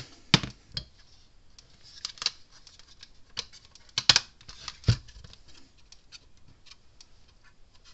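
Hands handling a fence charger's circuit board and plastic case: irregular clicks, taps and knocks, the loudest about a third of a second in and twice around four to five seconds in.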